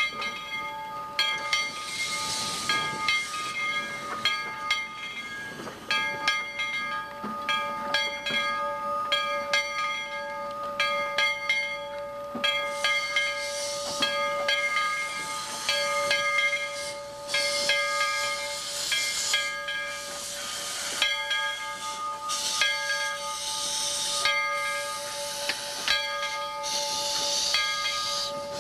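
A replica early B&O steam locomotive pulling open coaches slowly past. Steam hisses in repeated surges, with many sharp clicks and clanks from the wheels and running gear, over a steady high-pitched ringing tone.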